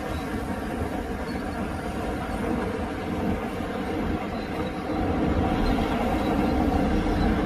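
Heavy diesel earthmoving machinery running steadily, a deep engine drone that grows louder about five seconds in.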